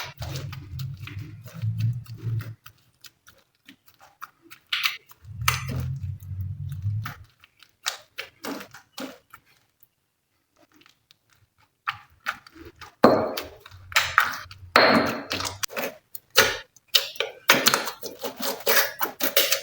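Glossy slime being worked by hand, giving sticky clicks, pops and crackles: sparse at first, then dense and continuous over the last six seconds or so. A low hum is heard twice in the first seven seconds.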